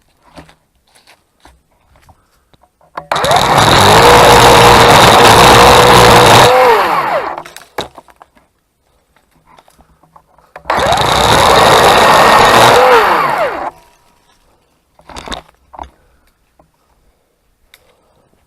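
Craftsman 40V cordless electric chainsaw cutting black walnut limbs. It runs twice for about three seconds each time at a steady, high-pitched whine, winding down when the trigger is released. Faint clicks fall between the runs.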